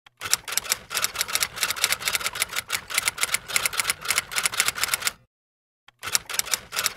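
Typewriter keys clacking in a quick run of keystrokes, several a second, as a typing sound effect. The typing stops about five seconds in and starts again about a second later.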